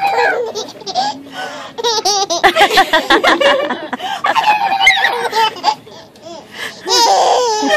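A baby laughing in repeated bursts as it is lifted and swung up and down, with a long, high, shaky squeal of laughter about seven seconds in.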